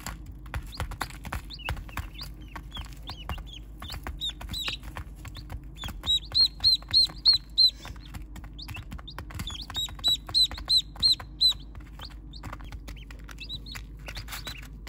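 Baby chicks and ducklings peeping in a brooder, with two runs of about six loud, rapid peeps, about four a second, some six and ten seconds in. Scattered small clicks run under the peeping, over a low steady hum.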